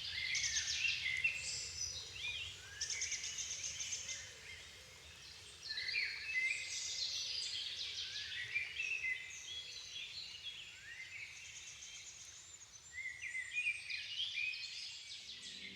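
Songbirds of a dusk chorus singing: bouts of high, quick, twittering song phrases with short lulls between them, over a faint low background hum.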